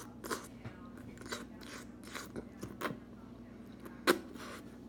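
A person chewing mouthfuls of spaghetti and meatballs close to the microphone, in irregular wet chewing and smacking sounds, with one sharp click about four seconds in.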